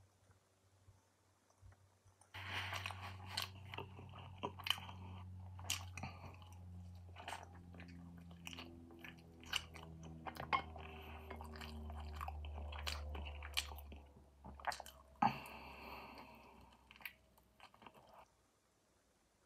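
Close-up chewing and biting of roast chicken, with many sharp wet mouth clicks and smacks. It starts about two seconds in and dies away near the end.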